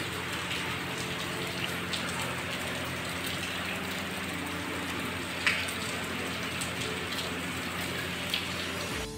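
Steady rain falling on a concrete courtyard, with scattered drips and splashes and a louder drip about five and a half seconds in. A steady low hum runs beneath it.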